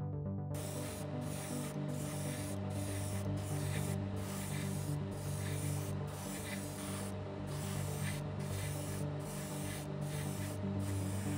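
Airbrush spraying paint onto a plastic scale-model chassis: a steady hiss that starts about half a second in and is cut by brief pauses every half second to a second as the trigger is let off.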